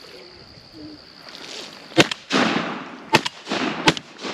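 Three shotgun blasts at ducks, starting about two seconds in and coming within about two seconds, each followed by a rolling echo.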